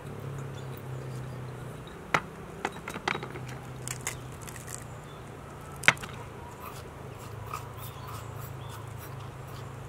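Unglazed clay spice jars and their lids knocking and clinking against a small metal bowl as spices are tipped out, a few sharp clicks about two to three seconds in and a louder one near six seconds. A steady low hum runs underneath.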